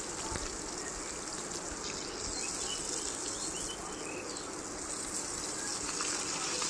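Bhetki fish steaks frying in hot mustard oil in a kadai, a steady sizzle with faint crackling.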